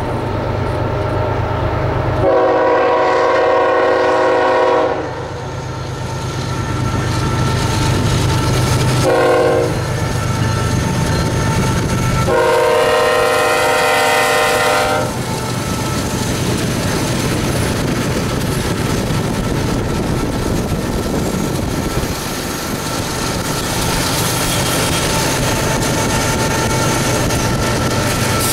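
BNSF diesel locomotive sounding its multi-tone air horn for a grade crossing: a long blast, a short one, then another long one. After that comes the steady rumble of the locomotive's engine and wheels on the rails as it passes close by.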